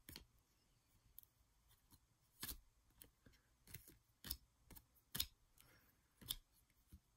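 1993 Topps baseball cards being dealt one at a time off a stack, each card giving a short, faint snap as it is pulled off and laid down, at an uneven pace of roughly one a second.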